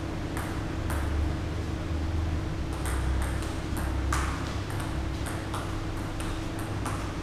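Table tennis rally: the ball clicks off the rackets and the table in a quick back-and-forth, with a couple of hits early and a fast string of hits from about three seconds in. A steady low hum runs underneath.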